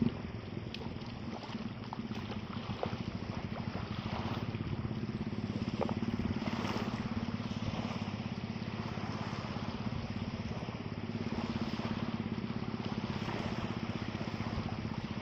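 Small engine running steadily at an even speed, with wind and water noise over it.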